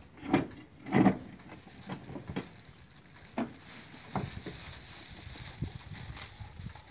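Knocks and bumps of a van seat being handled and test-fitted on its base: two louder thumps within the first second or so, then scattered lighter taps.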